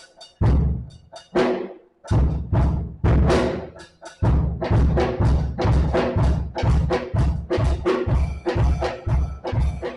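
Drums being played with heavy, low strikes: a few spaced hits in the first four seconds, then a steady beat of about two hits a second.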